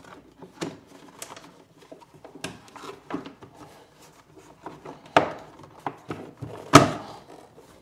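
Plastic golf cart dash panel being handled and pushed into place: scattered rubbing, clicks and knocks, with a sharp knock about five seconds in and the loudest one near the end.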